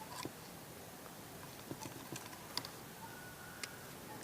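Faint, irregular clicks and taps of a spoon against a mixing cup while a glue-and-lotion slime mixture is stirred.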